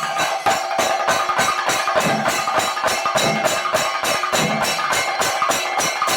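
Thayambaka: chenda drums beaten with sticks in a fast, dense, even roll, with deeper strokes about once a second and elathalam hand cymbals ringing steadily underneath.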